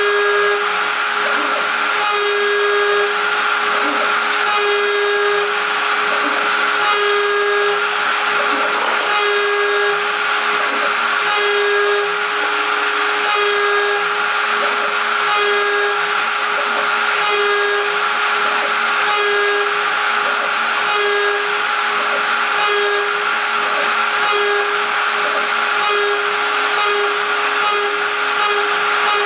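WorkBee CNC router spindle milling a 6061 aluminium plate with an end mill: a steady high whine, with a lower tone that comes and goes about every two seconds as the cutter works through its passes.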